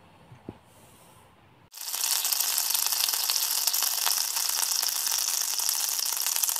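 Green peas tipped out of a metal frying pan into a plastic tub, a dense steady hiss of many small ticks that starts suddenly about two seconds in.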